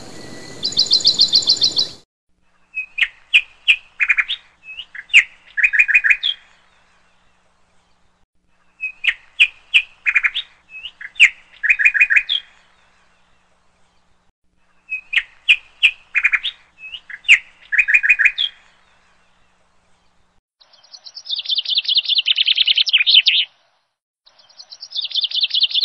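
Parrot calling: the same short phrase of clicks and chirps three times, about six seconds apart, then two longer, rapidly pulsing calls near the end.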